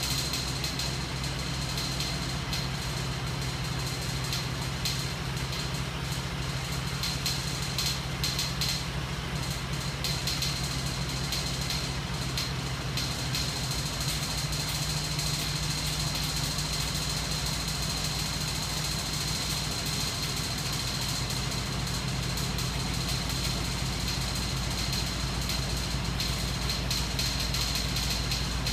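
Homemade crankshaft magnet-engine rig, driven by a battery-powered electric motor and turning small DC motors as generators, running steadily. It makes a continuous mechanical hum with a rapid fine rattle and a thin high whine.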